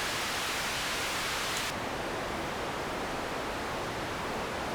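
Steady pink-noise hiss passed through a Warm Audio Tube Squealer overdrive pedal. A little under 2 seconds in, a faint click and the highs drop away, leaving a duller hiss: the guitar's pickup selector switched, rolling off the highs.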